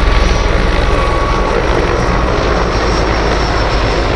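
Mil Mi-26T2 heavy-lift helicopter flying past: loud, steady noise of its eight-blade main rotor and twin turboshaft engines, with a faint thin high whine.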